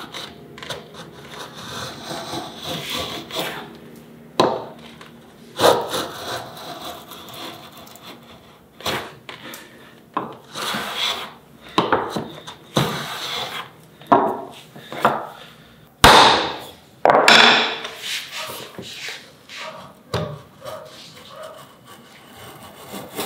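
Homemade beech-bodied router plane with a cobalt-steel blade shaving the bottom of a groove in a wooden board, cutting with the grain: a dozen or so uneven scraping strokes of the blade through the wood, several starting with a sharp bite.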